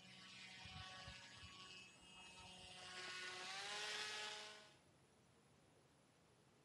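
Radio-controlled paramotor's small propeller motor whining as it flies past, getting louder and rising in pitch toward the middle, then cutting out suddenly about three-quarters of the way through.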